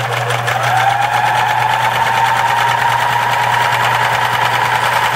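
Riccar 3500 sewing machine running and stitching, its motor whine rising in pitch over the first second, then holding steady with a fast, even rattle of the needle mechanism.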